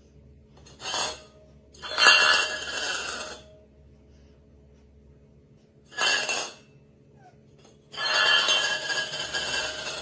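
Stainless steel pet bowl scraping and clinking across a tiled floor in four bursts: a short one about a second in, the loudest just after two seconds, another around six seconds, and a longer one in the last two seconds.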